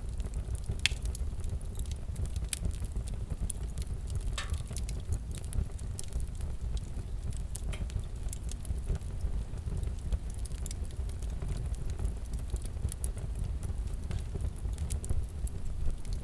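Fireplace crackling: a steady low rumble with scattered, irregular pops and crackles.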